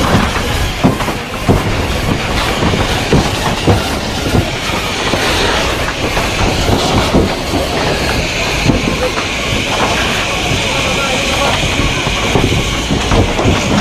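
Water hissing and rushing steadily at a burning house, with irregular crackles and knocks throughout.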